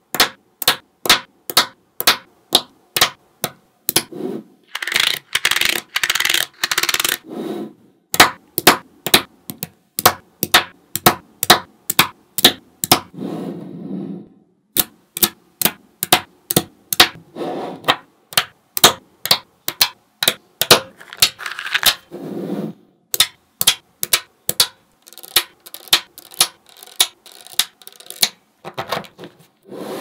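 Small magnetic balls clicking sharply as they snap onto a wall of magnet balls, about two to three clicks a second, with a few longer stretches of noisier rattling as strings of balls are laid in and settled.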